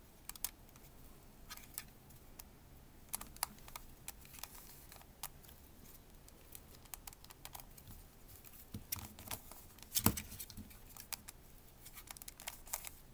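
Plastic Redi Barrel twisty puzzle (a shape mod of the Redi cube) being turned by hand: irregular plastic clicks and clacks as its corners snap round, the loudest cluster a little after the middle.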